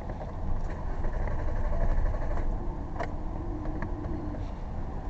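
Low, steady vehicle rumble that swells for a couple of seconds about half a second in, then eases, with a few faint clicks.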